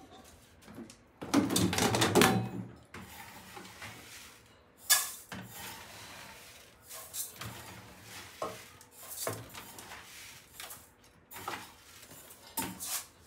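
Intermittent knocks and clatter of cookware and utensils being handled, with a louder stretch of scraping about a second in and a sharp clack near five seconds.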